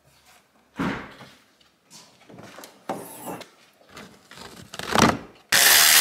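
Several handling knocks and taps of tools on metal, then a short, loud burst of a cordless power tool running for under a second near the end, as a battery cable terminal is undone.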